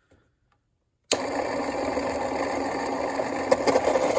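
A homemade electric pencil sharpener switched on about a second in: its 12-volt geared motor spinning the cutter cartridge with a steady whir. A couple of light clicks come near the end.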